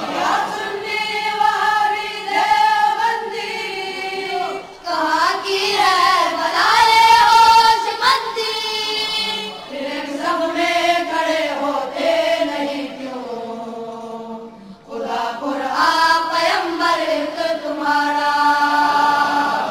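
Unaccompanied chant-like singing, with long held notes that waver in pitch. There is a short break about three-quarters of the way through.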